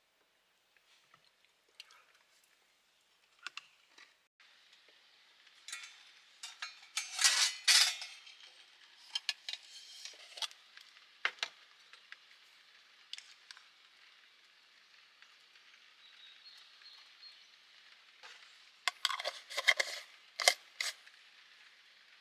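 Clinks and scrapes of a metal spoon against a plastic tub and glass jar, with the loudest clusters of clatter about seven seconds in and again near the end. A steady hiss comes in suddenly about four seconds in and stays under them.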